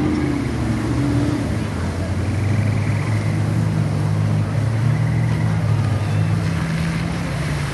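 Engine of an off-road Jeep running as it drives past close through a mud pit. Its low note is strongest from about two seconds in until near the end, over the noise of other trucks' engines.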